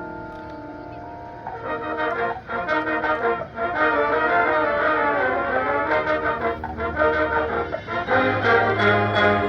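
High school marching band playing its field show. A soft held chord fades over the first second and a half, then the brass comes in louder with full chords.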